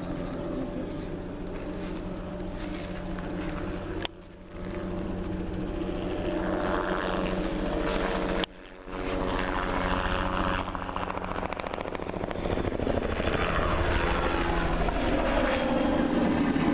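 Crop-spraying helicopter flying over, its rotor and engine running steadily and growing louder in the last few seconds as it comes closer. The sound drops out abruptly twice, briefly.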